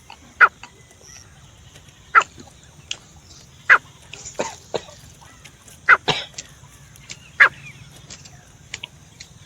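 Francolin (teetar) calling: about five short, sharp notes, each sliding quickly downward, spaced roughly a second and a half apart, with fainter clicks in between.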